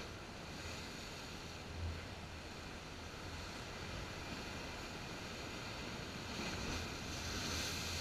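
Mediterranean surf breaking and washing over shore rocks, a steady rush of churning water. Near the end a wave crashes against the rocks right beside the camera and the rush swells.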